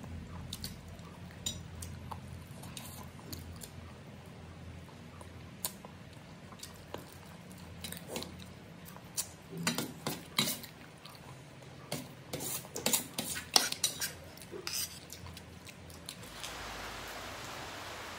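Metal spoon clinking and scraping against a plate while eating, in scattered sharp clicks that come thickest around the middle. Near the end a steady hiss comes in.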